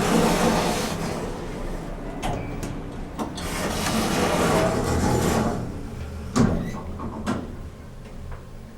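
Passenger lift doors sliding shut and the car setting off upward, with a steady low hum under the ride, two spells of rushing noise and a few sharp clicks along the way.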